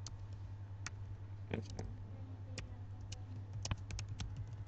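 Typing on a computer keyboard: irregular single key clicks with a quick run of them late on, over a steady low hum.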